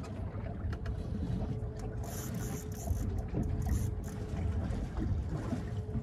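Wind buffeting a phone microphone on a small boat at sea, with a low rumble and a faint steady hum throughout.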